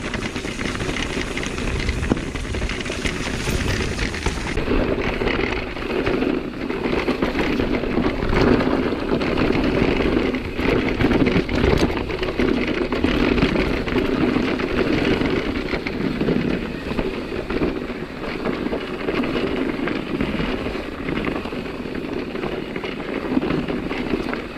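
Riding noise from a Nukeproof Megawatt e-mountain bike on a dirt trail: tyres rolling over the ground, wind on the microphone, and a steady run of small knocks and rattles from the bike over bumps. The hiss turns duller about four and a half seconds in.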